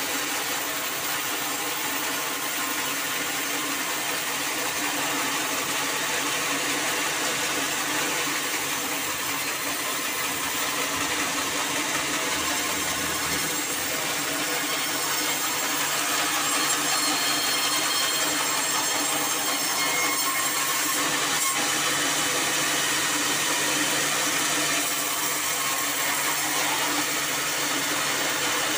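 Band sawmill blade cutting lengthwise through a black acacia log, a steady grinding saw noise over the mill's motor hum, a little louder from about halfway through.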